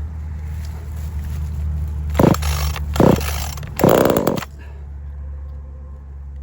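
Cheap two-stroke gas chainsaw pull-started on choke: three sharp rips of the starter cord, the third longest, with the engine catching on the third pull and then running low and steady.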